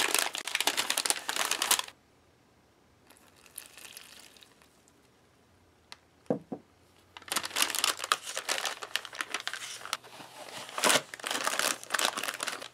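Plastic MRE ration-heater sleeve and the entree's paper carton crinkling as they are handled and the entree is pushed into the sleeve. The crinkling stops about two seconds in, leaving a few faint rustles and two soft knocks, then picks up again about seven seconds in.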